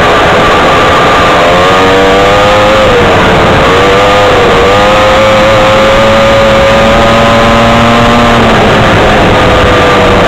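Engine of a small off-road vehicle driven along a dirt track, its note dipping and rising with the throttle a few seconds in, holding steady, then easing off about eight seconds in. Heavy rough wind and track noise on the microphone.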